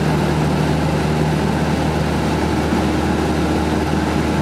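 Cessna 172 Skyhawk II's four-cylinder Lycoming piston engine and propeller running in cruise flight: a steady, unchanging low drone.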